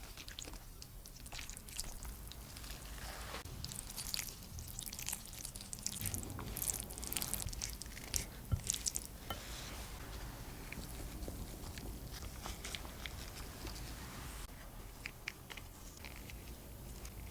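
Crisp, crackly food sounds with irregular clicks and taps, busiest from about four to nine seconds in.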